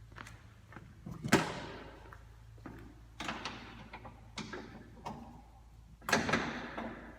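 Hard clunks and rattles of parts and tools being handled during radiator fitting, with two loud knocks that ring on briefly, about a second in and again near the end, and lighter taps between.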